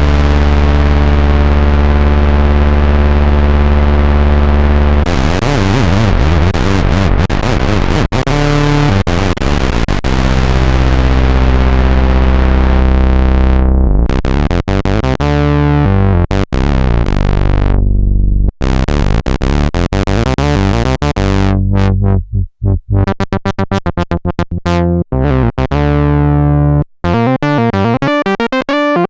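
Roland SH-101 monophonic analog synthesizer played dry, with no EQ, compression or effects. Long held low notes come first; about halfway through, the filter closes and the sound darkens. Near the end come short, separated staccato notes.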